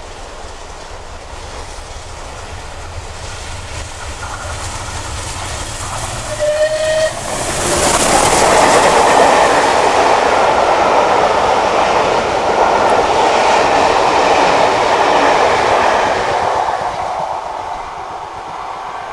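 Steam train hauled by the Bulleid Battle of Britain class locomotive 34067 Tangmere approaching with a growing rumble, giving one short whistle blast about six and a half seconds in. The train then rushes past loudly, its wheels clattering over the rails, and the sound fades as it runs away.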